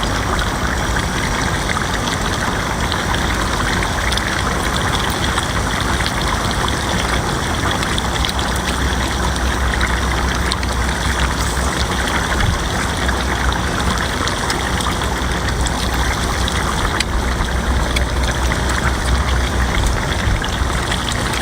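An engine running steadily, with a constant rush of water noise over it.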